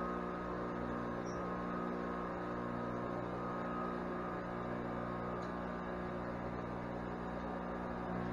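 Steady electric motor hum, a stack of even tones that does not change.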